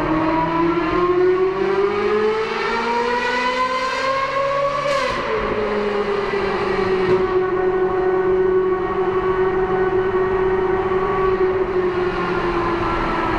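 Ferrari 458 Spider's 4.5-litre naturally aspirated V8 pulling up through a gear, heard from the open-roofed cabin and echoing off the tunnel walls. The pitch climbs for about five seconds, drops sharply at an upshift, then holds nearly steady as the car cruises on.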